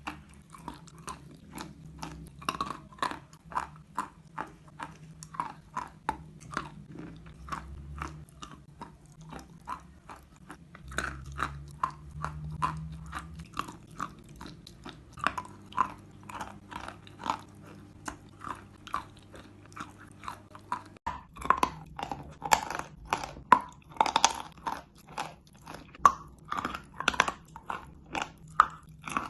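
Close-miked crunching and chewing of eating chalk, with crisp bites several times a second. The crunches become louder and sharper about two-thirds of the way through.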